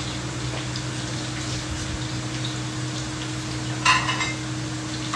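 Steady kitchen hum and hiss, with one sharp clink of kitchenware about four seconds in.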